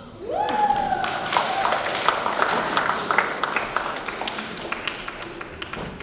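Audience clapping, with one person whooping near the start; the clapping thins out toward the end.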